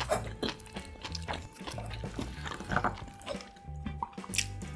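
Close-miked wet chewing and mouth clicks of someone eating, over soft background music with a stepping bass line.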